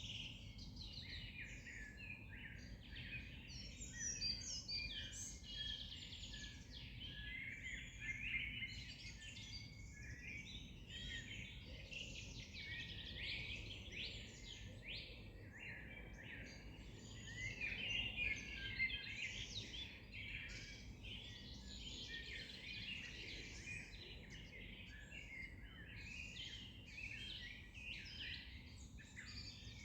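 A dense chorus of many small songbirds, with overlapping chirps and trills, over a faint low background rumble.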